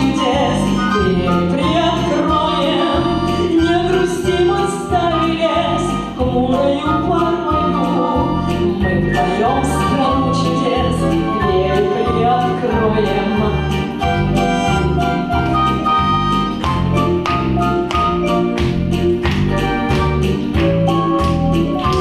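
Woman singing a song into a microphone over a recorded backing track with a steady beat; in the later part the backing track's beat stands out more.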